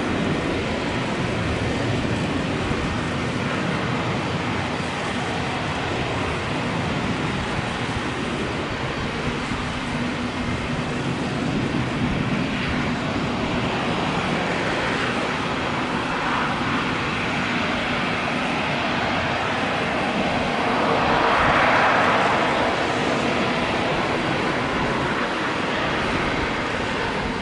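British Airways Airbus A380's four Rolls-Royce Trent 900 turbofans running at taxi power: a steady jet rush with a faint hum, swelling briefly louder about twenty seconds in.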